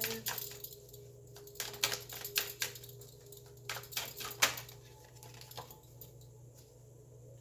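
Tarot cards being shuffled and handled: a run of irregular light clicks and flicks, a few of them louder.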